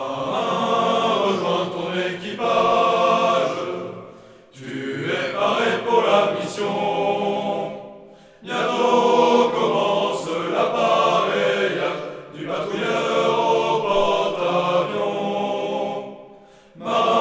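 A choir singing in sustained phrases of about four seconds, with brief breaks between them.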